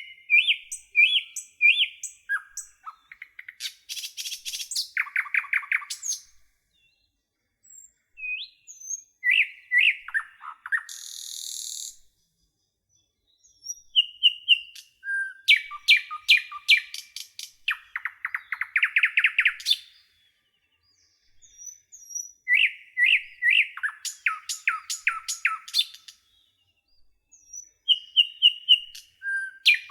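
A songbird singing in bouts of several seconds, each made of clear repeated whistled notes and fast buzzy trills, with pauses of a second or two between bouts.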